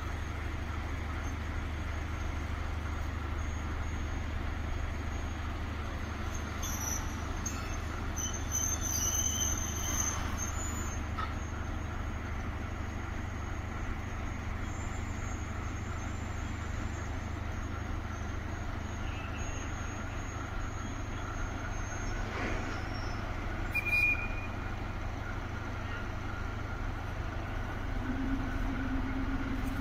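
Diesel shunting locomotive running with a steady low rumble as it moves slowly across the yard. Faint high squeals come about seven to ten seconds in, and a low steady tone begins near the end.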